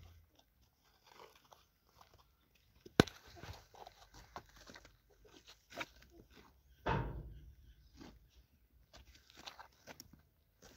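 Faint rustling and scattered soft clicks as a hand strokes a lying lamb's fleece, with one sharp click about three seconds in and a short rustle near seven seconds.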